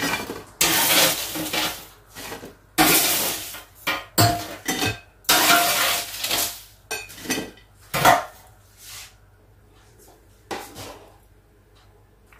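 Kitchenware clattering: an irregular run of clinks and scrapes of utensils against pots and dishes, some ringing briefly, thinning out after about nine seconds.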